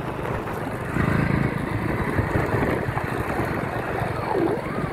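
Motorcycle engine running steadily while riding, getting a little louder about a second in.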